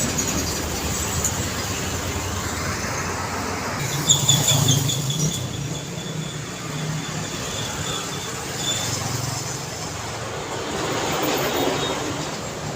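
Busy city road traffic, trucks and cars passing with a steady mix of engine rumble and tyre noise. About four seconds in there is a louder moment with a brief high squeal.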